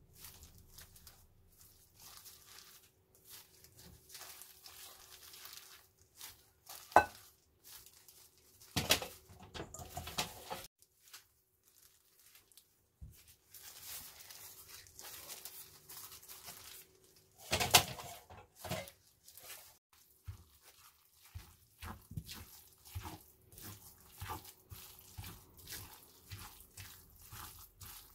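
Tofu and grated mountain yam being worked together in a suribachi (Japanese grinding bowl), with irregular soft scraping and squishing strokes. There are two sharp knocks, and quicker repeated strokes near the end.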